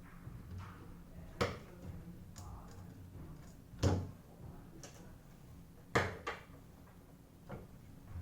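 A few sharp clicks and knocks of the oscilloscope's casing and parts being handled during disassembly, three of them louder and about two seconds apart, with fainter ticks between.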